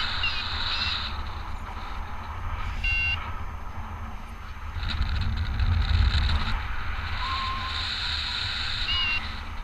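Wind noise from the airflow rushing over the microphone in flight, a steady low rumble with rising and falling hiss. A paragliding variometer gives a few short beeps: one at the start, one about three seconds in and one near the end.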